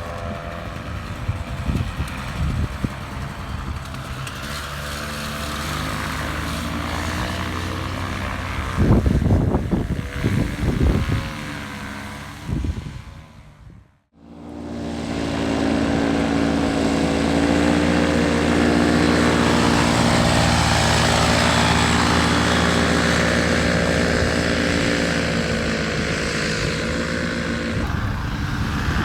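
Polini THOR single-cylinder two-stroke paramotor engine running with its propeller, revved in a few uneven blips about a third of the way in. The sound drops out abruptly about halfway, then a paramotor engine comes back in, running steadily at a higher, even power.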